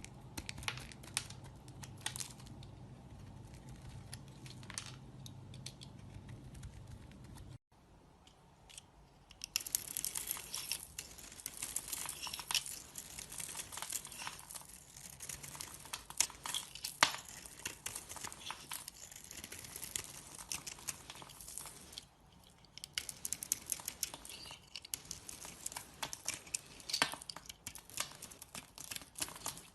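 A knife carving a bar of soap, making dense, crisp scraping and crackling cuts. The first several seconds are quieter, with a low hum and only a few clicks. The carving turns busy about nine seconds in and pauses briefly about 22 seconds in.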